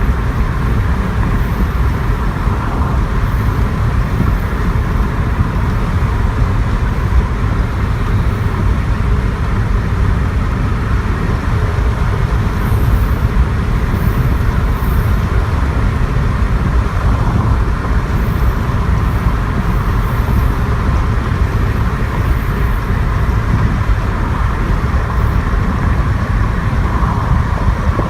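Vehicle driving through a corn field: a steady low rumble with a constant hiss over it.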